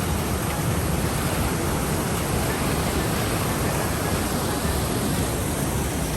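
Steady rushing of a waterfall swollen by heavy rain.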